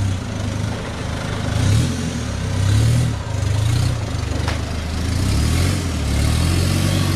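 Off-road 4x4 engine working under load, its revs rising and falling several times before holding steadier for the last couple of seconds. There is a short click about four and a half seconds in.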